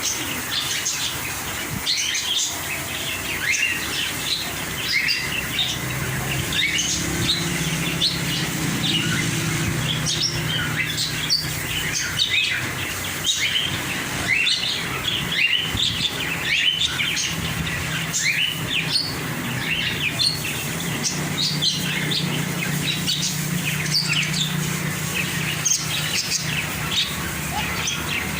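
Many small caged birds chirping and twittering, with quick high calls overlapping in a constant chatter.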